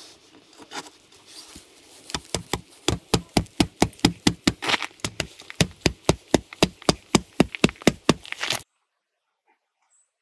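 A mallet hammering a metal stake into gravel: a few soft taps, then a steady run of sharp knocks about four a second that stops suddenly.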